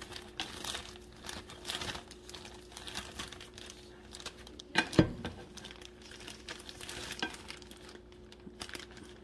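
Plastic marshmallow bag crinkling and rustling as marshmallows are dropped a few at a time into a pot, with scattered light clicks and one sharp knock about five seconds in.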